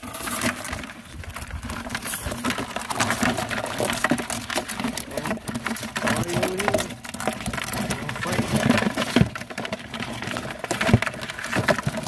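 Live blue crabs being tipped from a wire crab trap into a plastic bucket, then clattering and scratching as their legs and claws scrabble against the plastic and a bottle. Many close clicks and scrapes follow one another with no pause.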